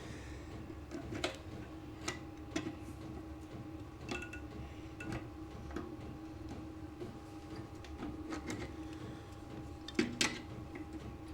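Scattered light clicks and taps of hands handling small parts on a lawn mower engine, the loudest two close together near the end, over a steady background hum.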